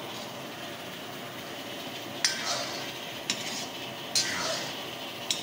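Metal ladle stirring thick creamy chicken gravy in a metal karahi, clanking against the pan four times about a second apart, over a steady hiss of cooking.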